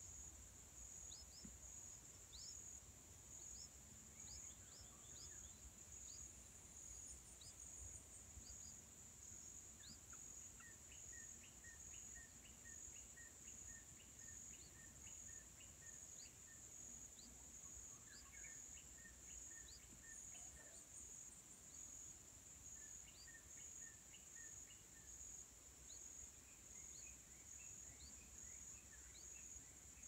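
Faint, steady high-pitched insect drone, with scattered short bird chirps and a run of evenly repeated bird calls through the middle.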